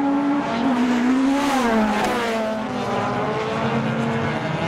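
Engines of two-wheel-drive autocross hatchbacks, a Citroën Saxo and an Opel Corsa, running hard on a dirt track. Their note drops about one and a half seconds in as the revs fall, with a brief rush of noise around two seconds.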